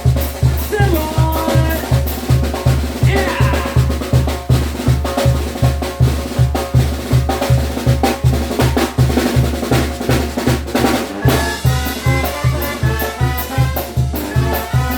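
Mexican banda brass-band music with a steady, heavy bass-drum beat and busy snare and drum-kit playing. About eleven seconds in, the percussion-heavy passage gives way to a fuller passage of held notes.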